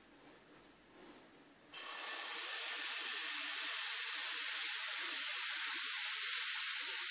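Steady hiss from the hot gas stovetop, starting abruptly about two seconds in and growing slightly louder.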